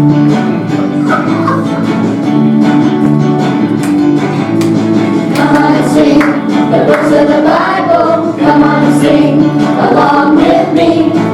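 A gospel-style song playing loud: an instrumental backing with a steady bass line, joined by group singing that grows stronger about halfway through.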